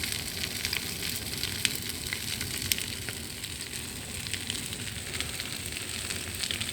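Large brush-pile bonfire burning hard: a steady rush of flames with many sharp crackles and pops throughout.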